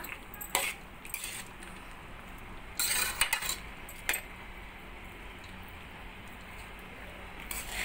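Metal spatula scraping and clinking against an aluminium kadai as cooked rice is tossed and mixed, in a few short strokes: one about half a second in, a quick cluster around three seconds, another a second later and one near the end.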